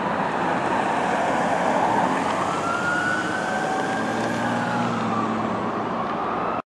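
Emergency sirens of a fire ladder truck and an ambulance responding code 3, slow wails rising and falling, over road traffic noise. The sound cuts off suddenly near the end.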